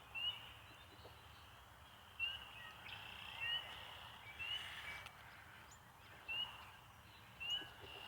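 Short, high, upward-sliding call notes from a small wild animal, repeated six times at about one a second, over a faint background hiss.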